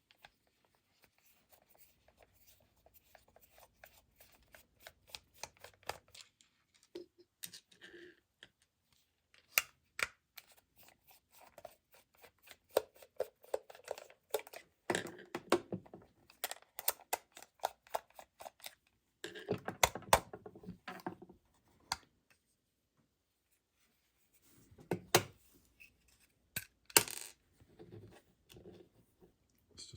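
Small screws being backed out of a plastic electric shaver housing with a T8 Torx screwdriver: a long run of small clicks, scrapes and rattles, with a few sharper clicks as the screws and the driver are handled and set down.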